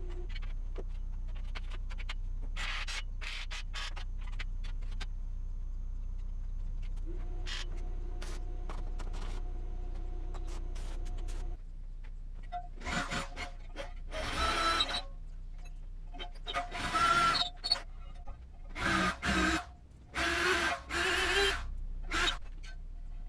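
Workshop work noises: a steady low hum with many sharp clicks and scrapes, then about five short, loud, noisy bursts, each a second or two long, starting about halfway through.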